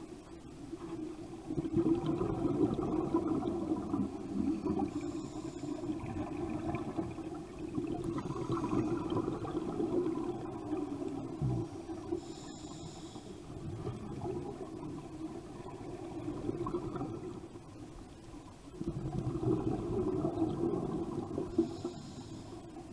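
Underwater sound of scuba divers breathing through regulators: exhaled bubbles rumble and gurgle in swells a few seconds long, with a few brief higher hisses between them.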